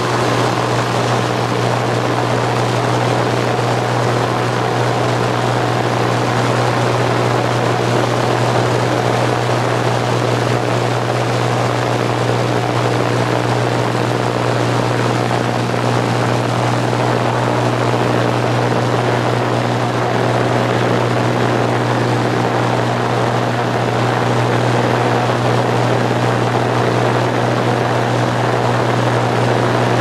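Light propeller plane's engine and propeller running steadily, a constant low drone heard from inside the cabin.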